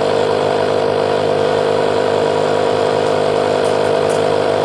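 Portable 12-volt tire inflator running steadily, pumping air into the freshly plugged tire.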